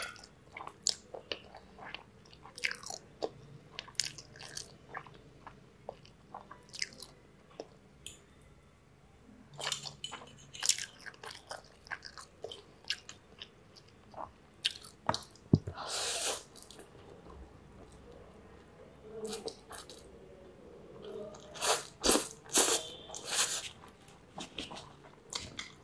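Close-miked eating of spaghetti with meat sauce: wet chewing and slurping of the noodles, with short sharp clicks of a metal fork and spoon against the plate. There are louder runs of mouth noise about two thirds of the way in and near the end.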